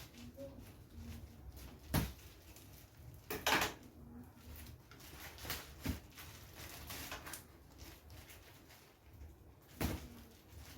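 Quiet room with a few scattered knocks and clunks of something being handled. The sharpest come about two seconds in, a double one around three and a half seconds in, and another near the end.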